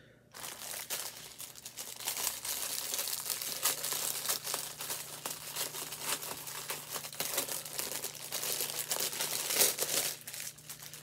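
Plastic bags of diamond-painting resin drills crinkling and rustling as they are handled and shaken. The sound is full of small irregular clicks and gets louder near the end.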